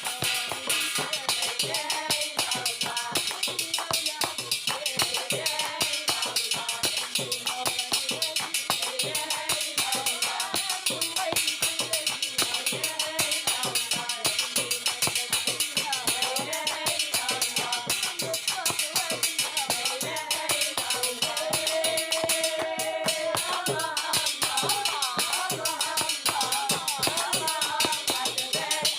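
Music with a fast, steady beat of hand drums and jingling tambourines under voices singing a religious praise song.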